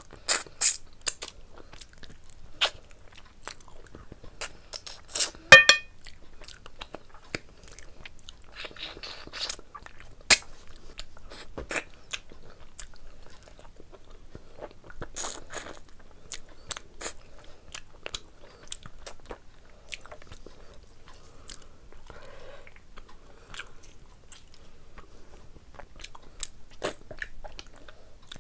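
Close-up eating sounds of a person biting and chewing mutton curry with rice, pulling the meat off the bone, with sharp mouth clicks and smacks at irregular intervals.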